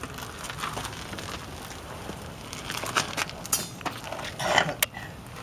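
Footsteps scuffing on gritty concrete, with scattered clicks and scrapes that grow louder in the second half.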